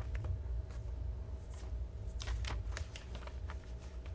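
Knife blade of a Microtech D.O.C. flipper slicing through a sheet of paper: a handful of short, dry rasps and rustles of paper, most of them in the second half, over a steady low rumble.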